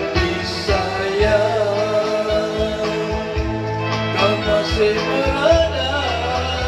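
A man singing a melodic song over steady band accompaniment with bass and guitar.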